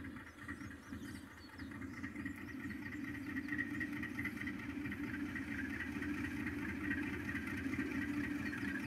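General Electric U20C diesel-electric locomotive's engine running with a steady drone, growing gradually louder as the freight train approaches.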